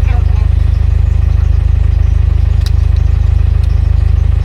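Car engine running, heard from inside the cabin: a loud, steady low drone with a faint single click a little over halfway.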